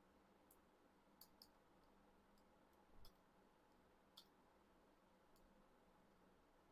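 Near silence with a handful of faint, isolated computer keyboard key clicks, spaced a second or so apart; one about three seconds in has a dull low thump.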